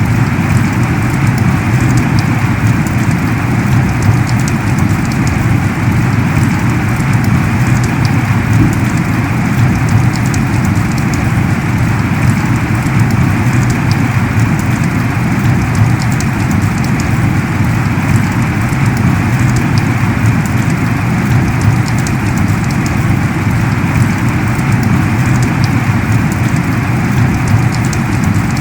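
Heavy rain pouring down steadily: a dense, unbroken hiss of rain with fine individual drop impacts ticking through it.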